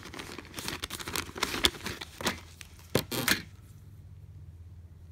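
A clear plastic packaging bag rustling and crinkling while a coiled cable with metal alligator clips is handled, with sharp clicks and clinks from the clips. The handling stops about three and a half seconds in, leaving only a faint low steady hum.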